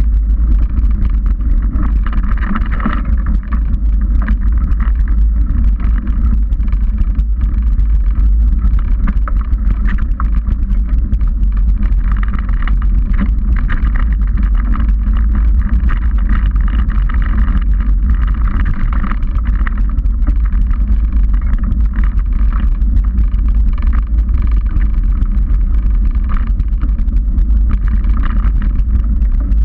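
Mountain bike ride recorded on a bike-mounted action camera: a steady heavy low rumble of ride vibration and wind on the microphone, with the tyres rolling over a dirt trail.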